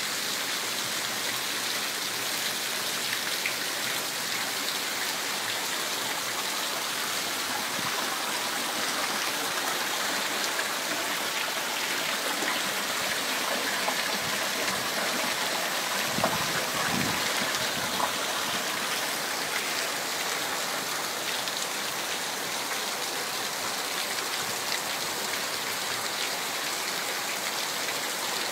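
Heavy rain pouring steadily, with a couple of dull thumps about halfway through.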